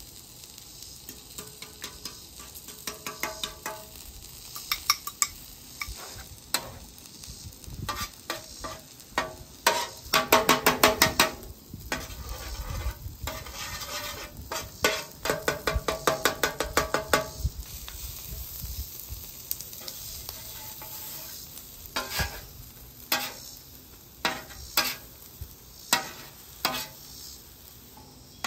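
Beaten eggs sizzling in butter on a flat-top griddle while a metal spatula scrapes and taps on the steel surface, chopping and scrambling them. About ten seconds in and again a few seconds later come runs of fast chopping strokes; near the end there are slower single scrapes.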